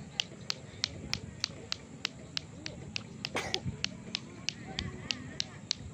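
An even series of sharp, high clicks, about three a second, with a brief burst of noise a little past halfway.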